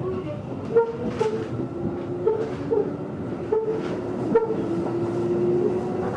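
JR 211 series electric multiple unit running, heard from inside the passenger car: steady track and running noise with sharp clicks from the rails at irregular intervals, and short steady tones riding on top.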